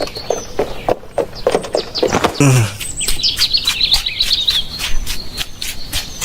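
Small birds chirping: a run of short falling calls, then a quick chattering series of high chirps, with light clicks throughout.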